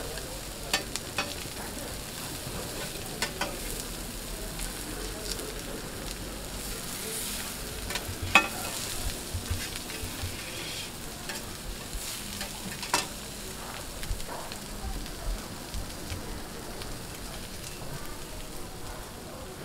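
Split whole fish frying in oil on a flat steel griddle, with a steady sizzle. Metal spatulas scrape and tap against the griddle plate in sharp clicks, the loudest about eight seconds in and again near thirteen.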